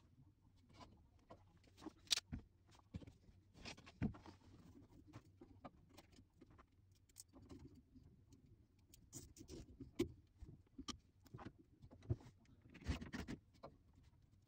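Faint scattered clicks, taps and rustling from hands working on an air-conditioner indoor unit's wiring and metal casing, with sharper taps about two and four seconds in and a short cluster near the end.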